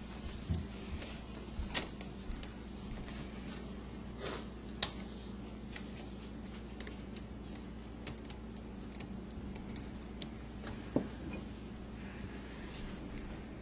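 Scattered, irregular small clicks and taps of a screwdriver and tiny screws on a laptop's screen frame and hinge brackets while the screws are being started, over a steady low hum.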